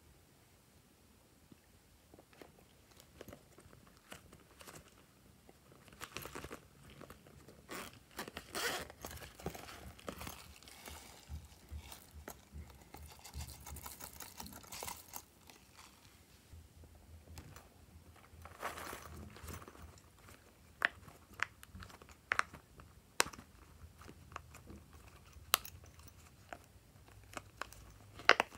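Soft crunching and crinkling as small things are crumbled and sprinkled by hand over a tray of slime, in irregular patches. A few separate sharp clicks follow near the end.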